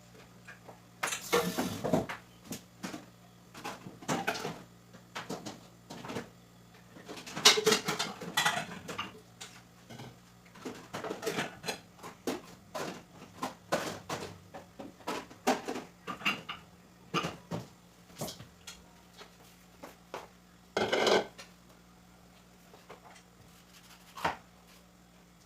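Dishes and cutlery clinking and clattering as they are handled and set down: irregular knocks, with a few louder bursts of clatter, about a second in, around seven to eight seconds in, and near the end.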